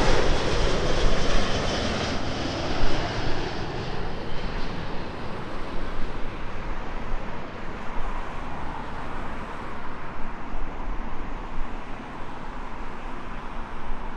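Jet airliner's engine noise, a loud rushing roar that fades steadily as the plane moves away after landing, leaving a low rumble.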